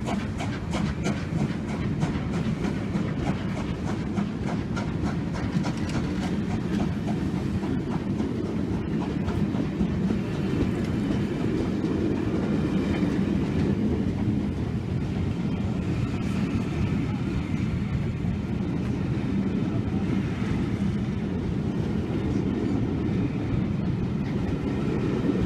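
Passenger train carriages rolling past on the rails, with a steady running noise and rapid wheel clicks over the rail joints in the first several seconds.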